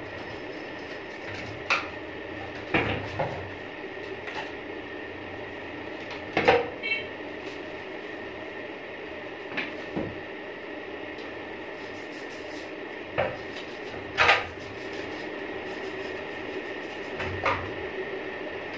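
Aluminium motorbike wheel hub knocking and clinking against a basin and brush as it is turned and handled, about nine separate knocks over a steady background hum.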